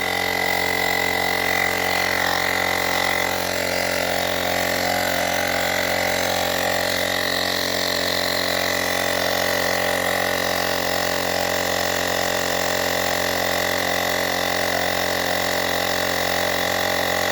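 Portable cordless tyre inflator's small electric compressor running steadily while pumping up a motorcycle tyre: a constant buzzing hum with a high whine over it.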